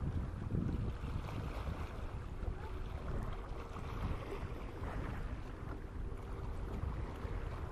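Wind buffeting the microphone in an uneven, gusty rumble, with a faint steady hum underneath.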